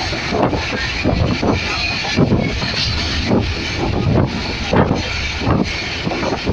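Passenger train coach running at speed, heard at an open window: a steady rumble of wheels on the track with irregular knocks.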